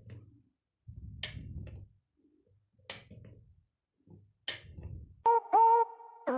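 Four sharp clicks about a second and a half apart, from panel push buttons being pressed and the Omron MK3P-N relay switching, each with a short low rumble. About five seconds in, a louder electronic intro jingle with bending synth notes takes over.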